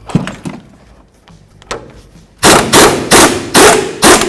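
Impact wrench on a socket and swivel hammering loose a nut in short bursts, about two or three a second, starting about two and a half seconds in. A couple of sharp metal knocks come first.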